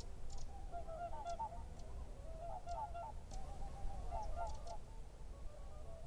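A flock of geese honking, a busy run of short overlapping calls, over a low steady rumble.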